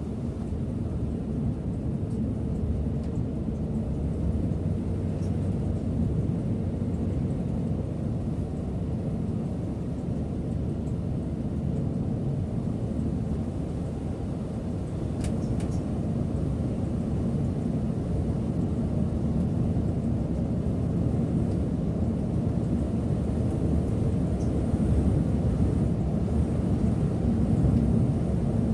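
Steady low rumble of a Setra S 531 DT double-decker bus on the move, heard from the driver's seat: engine and road noise, with a couple of faint clicks about halfway through.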